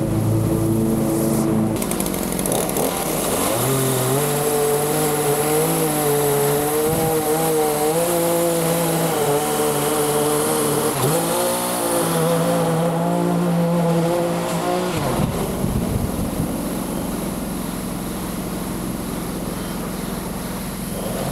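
Small gasoline engine of lawn-care equipment running under load, its speed wavering. The pitch shifts suddenly about two seconds in and again near fifteen seconds.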